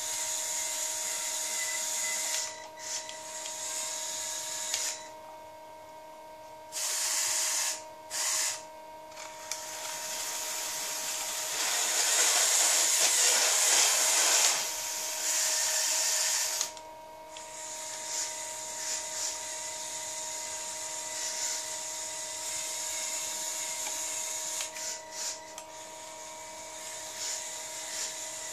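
Small electric motors of a Lego Technic RC lawn mower whirring like a small drill, cutting out and starting again several times and running loudest around the middle.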